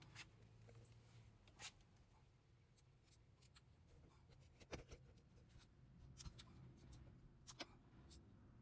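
Near silence with a few faint, scattered clicks and taps from a click-type torque wrench being handled and set on the spool valve bolts.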